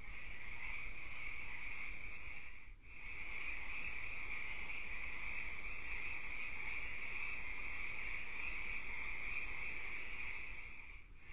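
Steady high-pitched chorus of night-calling animals, a continuous trilling drone. It drops out briefly about three seconds in and again near the end.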